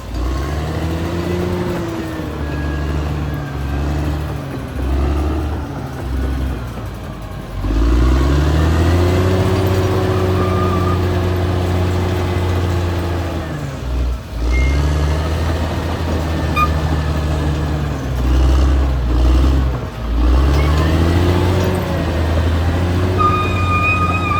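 Caterpillar D6R XL bulldozer's diesel engine working under load, its pitch rising and falling as the throttle and load change, climbing about a third of the way in and holding high for several seconds, with short dips twice later on. A thin, wavering high squeal comes in near the end.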